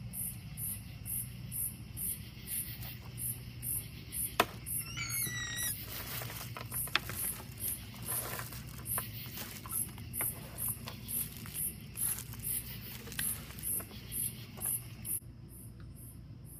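Crickets chirping in a steady rhythm, about two chirps a second, fading somewhat near the end. A sharp click sounds about four and a half seconds in, with a few faint knocks of handling around it.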